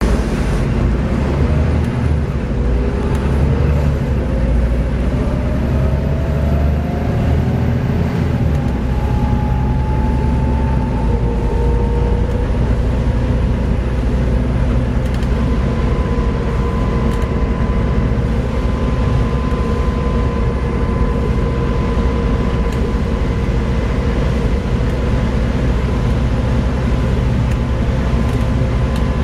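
Volvo B7TL double-decker bus's diesel engine and driveline running under load, with a whine that rises in pitch over the first ten seconds or so as the bus picks up speed, then holds steady at a constant pitch as it runs on at a steady speed.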